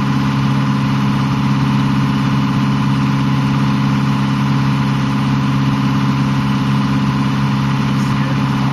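A sailboat's auxiliary engine running steadily at constant speed, with a low, even hum that does not change.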